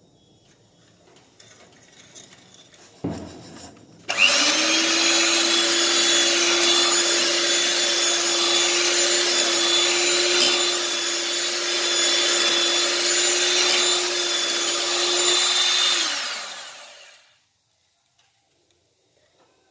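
Electric mixer beating butter and sugar: it starts suddenly about four seconds in, runs at a steady speed with a constant motor hum and whine, and winds down near the end. A single knock comes just before it starts.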